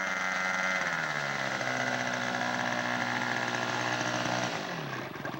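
Small radio-controlled model seaplane engine running, throttled back twice: its pitch drops about a second in and falls again near the end as it winds down after the landing.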